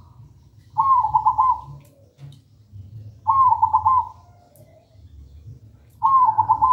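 Zebra dove (perkutut) cooing: three song phrases about two and a half seconds apart, each a quick stuttering run of notes at much the same pitch.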